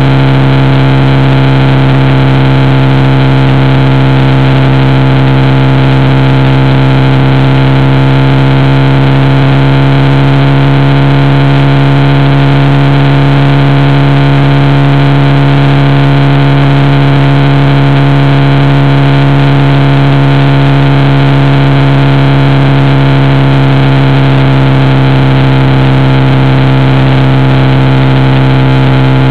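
Motorcycle engine running at a steady cruising speed, heard loud and close from the moving bike, as a constant low hum that does not change in pitch. Wind and road rush sound over it.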